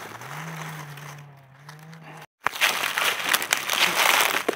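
A steady low hum first. About two seconds in it cuts off, and gloved hands rustle and crunch through dry grass stems and leaf litter, with many small crackles and snaps.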